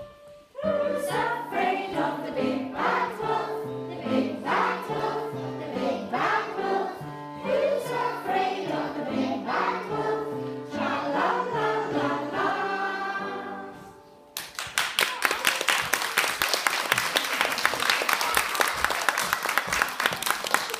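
A group of young children singing a song together. About fourteen seconds in the singing stops and applause breaks out.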